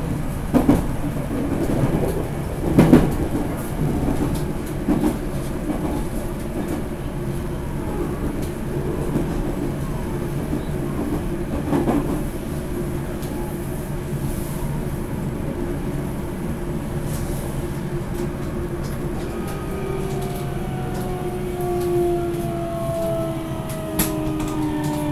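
Running noise inside a 373 series electric train, heard from the vestibule of a motor car: a steady rumble with wheel knocks over rail joints in the first dozen seconds. From about twenty seconds in, a motor whine falls slowly in pitch as the train slows for its stop.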